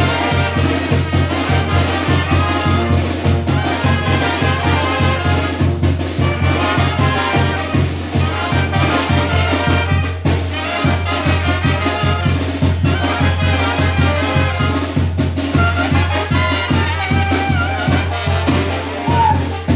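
A Oaxacan banda de viento playing a chilena. Clarinets and trumpets carry the melody over trombones, while a sousaphone pumps a steady, rhythmic bass line.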